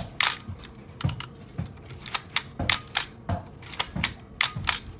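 Nikon F3 35mm SLR being worked by hand: a quick, irregular run of sharp mechanical clicks, many in close pairs, as the shutter is fired and the film advance lever cocked over and over, showing the camera works on its new batteries.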